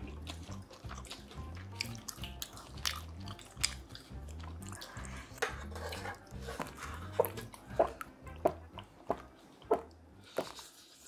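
Close-miked eating: wet chewing and mouth clicks, settling into a steady rhythm of about one chew every two-thirds of a second in the second half, over quiet background music with a low repeating beat.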